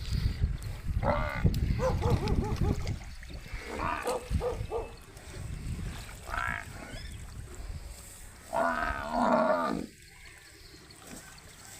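Several short animal calls that bend up and down in pitch, with a longer call of about a second near the end, over a low rumble in the first half.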